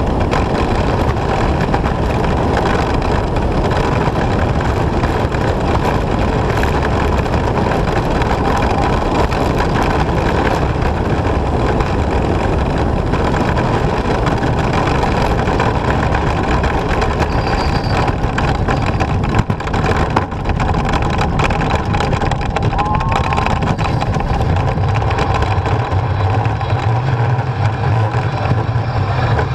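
Four-man bobsled running at high speed down an ice track: the steel runners on the ice make a loud, steady rumble and rush of wind, heard from the front of the sled. Near the end the low rumble grows stronger as the sled reaches the finish run-out.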